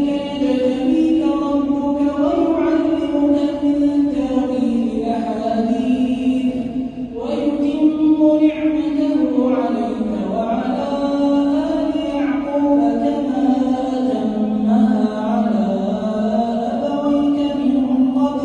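A man reciting the Quran in slow, melodic chanted recitation, holding long notes that rise and fall. There is a brief pause for breath about seven seconds in.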